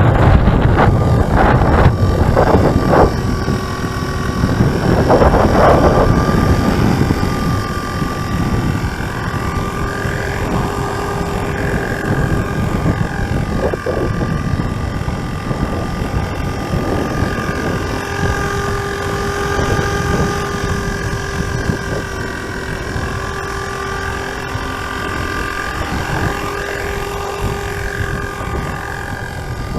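FORZA450 450-size RC helicopter hovering, its rotor and drivetrain giving a steady whine with gently wavering pitch. Strong wind buffets the microphone, heaviest in the first several seconds.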